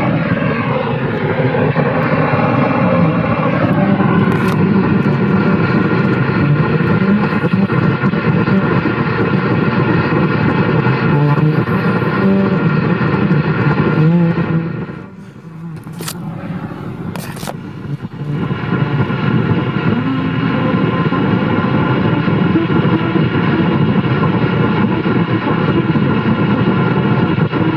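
AM car radio tuned to a weak station, playing loud static with a buzzing hum of steady tones. A whistle glides down and back up in the first few seconds, and about halfway through the signal drops away for a few seconds, with a couple of sharp crackles, before the hum returns.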